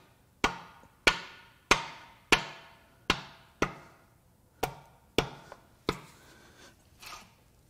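A small hammer tapping a dowel held against the pistons in the bores of a 2.7 EcoBoost V6 block, about ten sharp knocks with a brief ring, the last few lighter. It is part of a check of the pistons for bent connecting rods.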